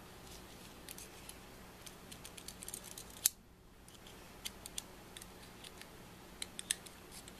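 Small, sharp metal clicks and taps, irregular and in short clusters, as tweezers probe and knock against the parts of a disassembled Canon FD lens's breech-lock mount, with one louder click about midway.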